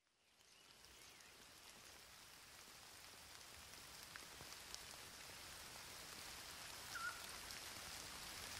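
Faint, steady outdoor hiss of forest ambience, fading in and slowly growing louder, with a few faint ticks and a brief faint chirp about seven seconds in.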